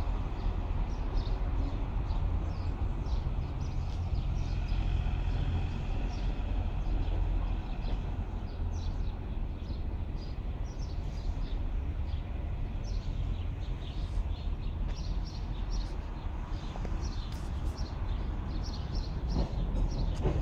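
Low steady rumble of trams running on street track and city traffic, with birds chirping. A faint high whine comes in about four seconds in and fades a few seconds later.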